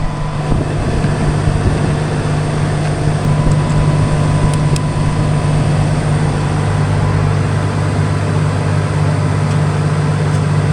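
Self-propelled swather's diesel engine running steadily at idle, an even low hum.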